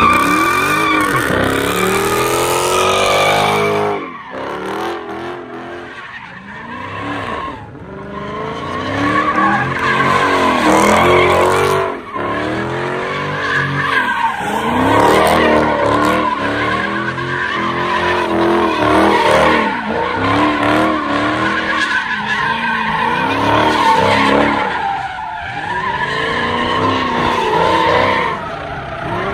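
Dodge Charger doing donuts: the engine revs up and down over and over while the rear tires squeal, spinning against the pavement. The revving eases for a few seconds about four seconds in, then picks up again.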